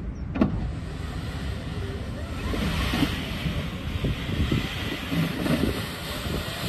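Rumble and scraping of a small battery-electric wheel loader driving over sand and pushing it with its bucket, with wind buffeting the microphone. A noisy hiss grows stronger a few seconds in, with a few short knocks.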